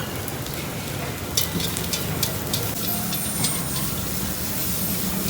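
Noodles frying in a wok: a sizzling hiss over a steady low hum, with the metal spatula clicking against the pan several times from about a second and a half in.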